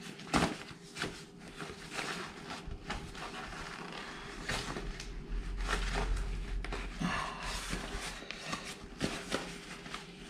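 Fabric rustling with irregular plastic clicks and knocks as buttons on the stroller's fabric are worked through small holes in the Peg Perego YPSI stroller frame.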